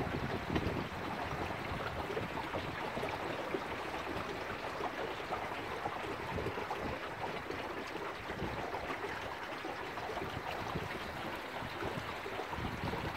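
Water rushing and lapping along the hull of a wooden sailing dinghy moving under sail, a steady wash with no engine.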